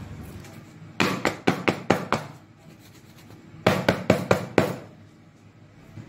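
Aluminium cake tin full of batter rapped down on a wooden chopping board in two quick runs of knocks, about six each, to settle the batter in the tin.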